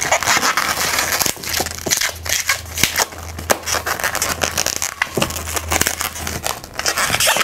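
Inflated latex modelling balloons (a clear 160 tied to brown and mocha 260s) being twisted and handled: a continuous crinkly rubbing of rubber against rubber and hands, with many small clicks and snaps as a pinch twist is made.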